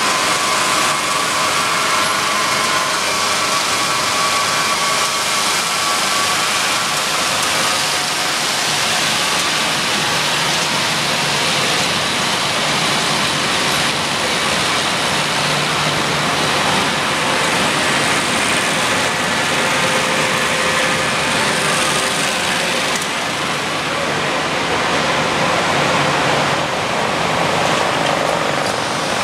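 Folder gluer and automatic carton packer line running: a steady, dense mechanical noise of rollers, belts and drives moving cartons through.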